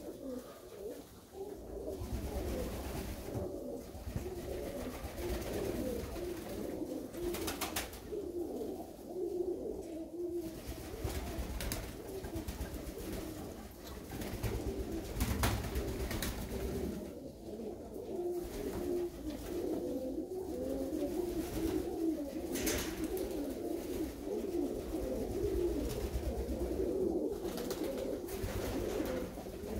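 A flock of Koros Tumbler pigeons cooing, many birds overlapping in a continuous low warble, with a few short sharp clicks here and there.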